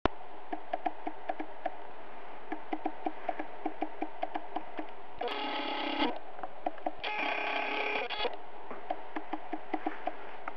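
Music played through B&W 801 loudspeakers, picked up by a poor microphone: a quick clicking beat over a low tune, with two held chords of about a second each, about five and seven seconds in.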